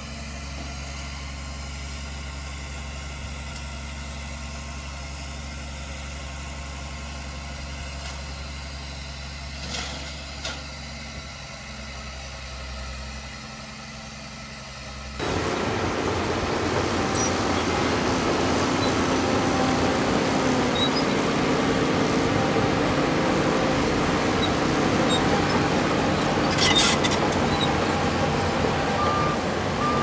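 Diesel engine of heavy earthmoving machinery running with a steady low hum. About halfway through it cuts suddenly to much louder, noisier engine sound of machines at work. A few short reversing beeps sound near the end.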